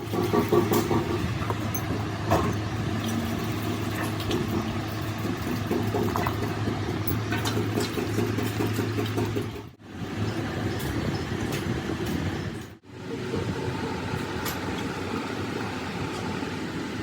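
Steady machine hum with scattered metallic clicks and clinks, cut off abruptly twice, about ten and thirteen seconds in.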